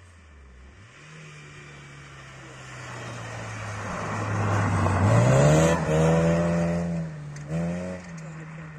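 Volkswagen Golf rally car's engine coming up at full throttle and passing close by, its pitch and loudness climbing to a peak about five seconds in, with tyre and snow-spray hiss. A brief drop in revs and a short burst come near the end as it drives away.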